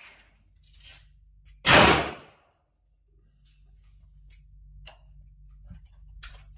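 A single 9mm shot from a Glock 19 pistol about two seconds in: a sharp crack with a short echo off the range walls. A few faint ticks follow.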